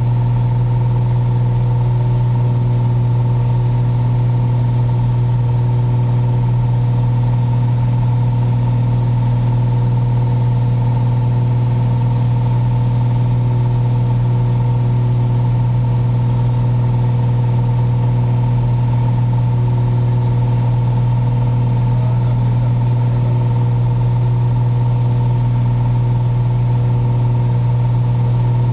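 Piper Saratoga's six-cylinder Lycoming piston engine and propeller running steadily in flight, a constant low drone heard inside the cabin.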